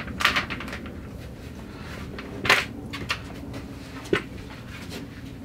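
Handling of a collapsible bucket with a plastic rim and wire handle: a few short scuffs and knocks as it is turned and folded, the loudest about two and a half seconds in.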